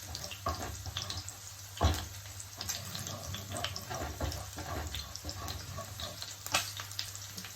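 Food sizzling and crackling in butter in a frying pan, with one sharp knock about two seconds in.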